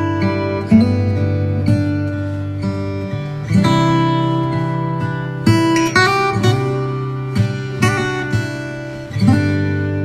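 Background music played on acoustic guitar: plucked, gently strummed chords that change every second or two.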